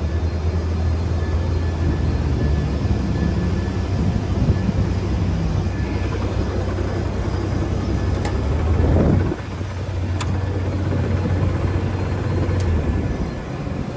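Airport baggage tug's engine running as it drives and tows baggage carts, a steady low hum with road and motor noise over it. There is a brief surge of noise about nine seconds in, and the low hum stops near the end as the tug is shut down.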